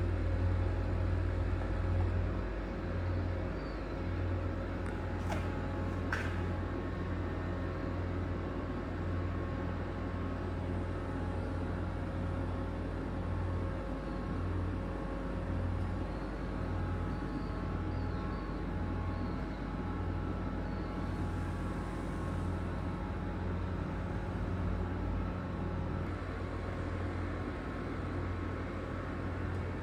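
Steady low mechanical hum with a few faint steady tones above it, with two faint clicks about five and six seconds in.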